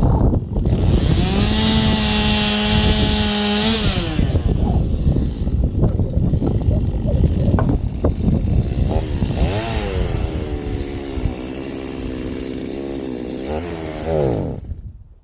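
Chainsaw cutting juniper branches, its engine pitch rising to a high steady whine at full throttle and wavering as the chain bites into the wood. Near the end the pitch falls away as the throttle is released.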